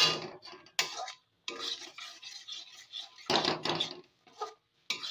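Metal spatula scraping and stirring peanuts in sugar syrup around a metal pan, in irregular strokes with short pauses. The strokes are loudest about three and a half seconds in.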